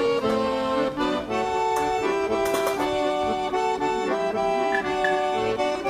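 Accordion music: an accordion playing a melody of held notes.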